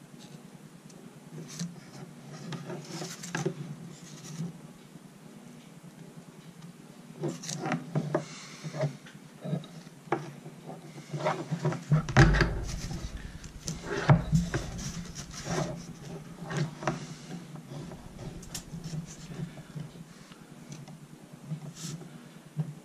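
Handling noises on a workbench while an N scale model railway turnout is soldered: scattered clicks, rubs and light knocks of the plastic track and metal tools. A heavier bump comes about twelve seconds in, and a steady low hum runs underneath.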